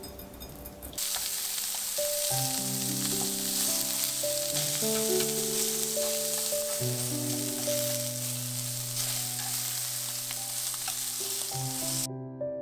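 Slices of pork jowl and whole garlic cloves sizzling in a hot frying pan, starting about a second in and cutting off suddenly near the end, over soft piano music.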